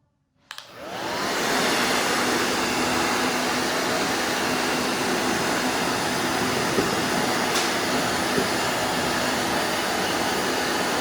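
Blow dryer switched on with a click about half a second in, its fan spinning up with a rising whine to a steady blowing rush.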